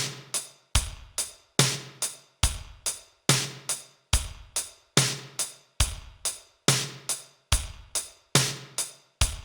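Programmed drum beat on its own, with no melody: a strong drum hit about every 0.8 s, each followed a moment later by a lighter one, in a steady repeating pattern.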